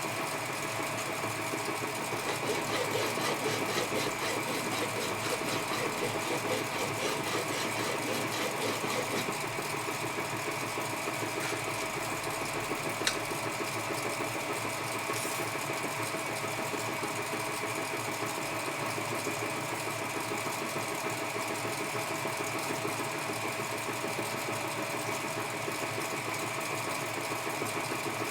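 Edgwick lathe running under power with a steady hum, taking a screw-cutting pass on a hob blank. A fast, light rhythmic ticking from the cut comes through over the first several seconds, and there is a single click about 13 seconds in.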